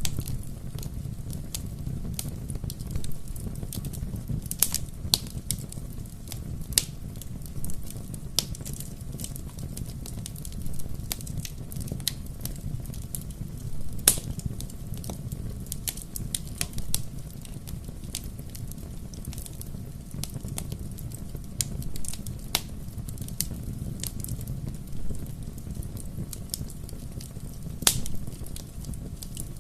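Bonfire crackling: a steady low rumble of burning wood with frequent sharp pops and snaps, the loudest snaps about halfway through and again near the end.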